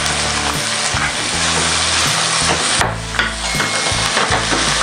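Halved cherry tomatoes sizzling in hot butter and oil in a frying pan, stirred around in the pan, with a steady frying hiss.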